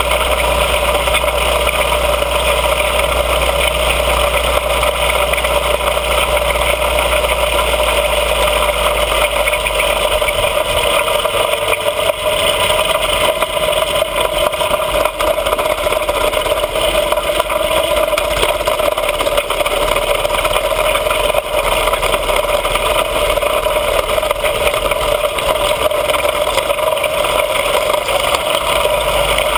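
Mini bike's small engine running steadily under way, mixed with wind rushing over the microphone; a low rumble drops away about ten seconds in.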